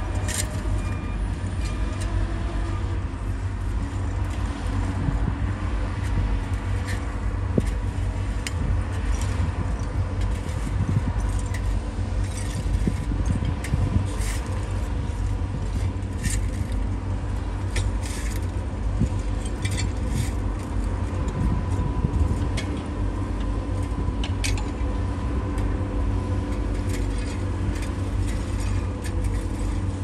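Heavy earthmoving machine's diesel engine running steadily under load with a deep rumble, with scattered sharp metallic clinks and squeaks throughout.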